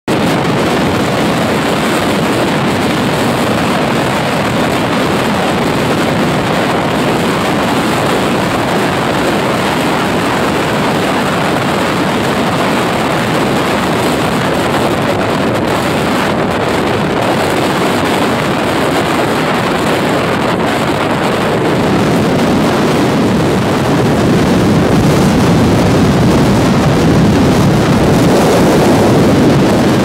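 Heavy storm surf breaking onto a rocky shore and washing through the rocks: a continuous loud rush of waves and foam, growing louder near the end.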